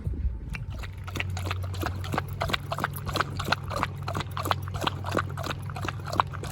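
Vehicle driving over a rough dirt road: a steady low engine hum with irregular clicks and knocks of stones and bumps under the tyres, several a second.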